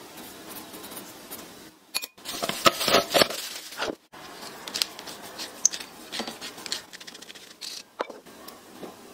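Spoon and brown sugar scraping and clinking against a small glass bowl, loudest about two to three seconds in, followed by scattered small clicks and scrapes as salt and pepper go into the bowl.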